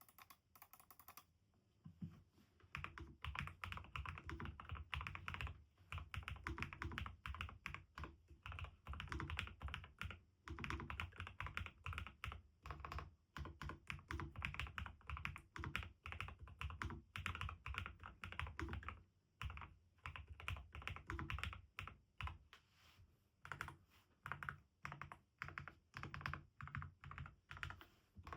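NuPhy Kick75 low-profile mechanical keyboard with Gateron Low-profile 3.0 Red Nano linear switches and nSA-profile keycaps being typed on. Quick runs of keystrokes start about two seconds in and carry on with a few short pauses.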